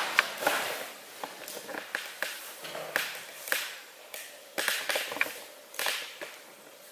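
Footsteps and scuffs on a gritty floor, an irregular run of crunches and small clicks, a few a second, growing sparser and fainter toward the end.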